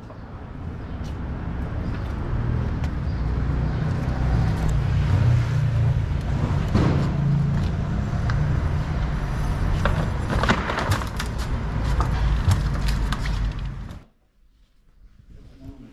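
Steady low rumble of a motor vehicle's engine on the street, with scattered knocks and clatter from a wooden shipping crate being worked on. The sound cuts off suddenly near the end.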